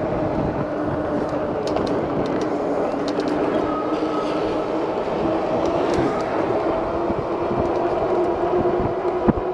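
Lectric XP e-bike riding along the road: a steady pitched hum from the hub motor over tyre and road noise, with a few light clicks and rattles.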